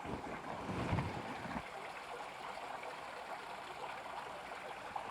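Flowing water babbling steadily. A few low thumps come in the first second and a half.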